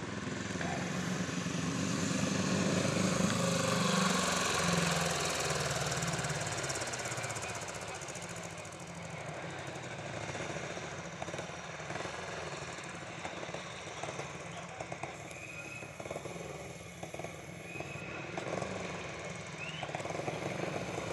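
Speedway bikes' single-cylinder methanol engines running at low revs as the bikes coast slowly around the track, loudest a few seconds in and then fading as they move away.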